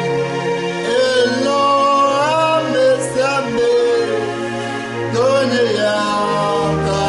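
A man singing a slow gospel song over steady sustained instrumental chords.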